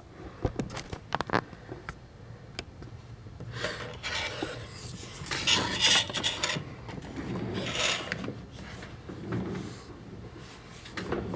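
Handling noise: a few sharp clicks, then irregular rubbing and scraping as things are moved and set up on a work surface.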